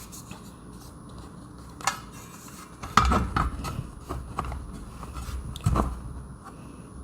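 Hard parts of a Ring doorbell's anti-theft door mount being handled and set down: a few scattered clicks and knocks, the loudest about three seconds in.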